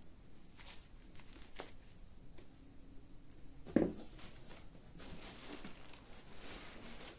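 Plastic wrap crinkling and cardboard and styrofoam packaging being handled, with one dull thump a little under four seconds in.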